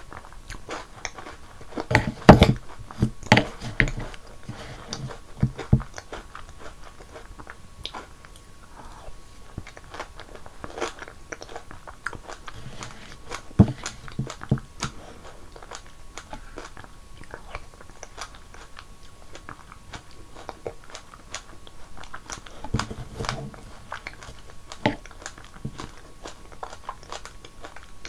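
Close-miked chewing and crunching of snacks soaked in milky strawberry shaved ice, wet mouth sounds mixed with crisp crackles. The crunching comes in louder bursts about two seconds in, near the middle and a few seconds before the end.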